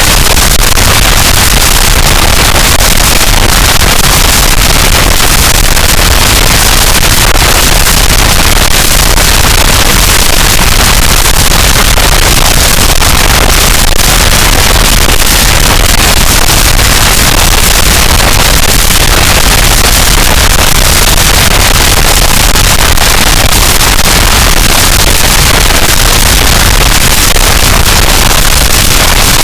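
Harsh noise wall: a dense, unchanging wall of distorted static at full loudness, heaviest in the deep bass, with no rhythm, pitch or breaks.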